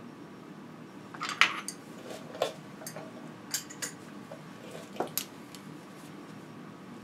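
Scattered sharp metallic clinks and clicks of a hand tool and metal parts being handled at a bicycle's bottom bracket, the loudest about a second and a half in and a few lighter ones over the next few seconds.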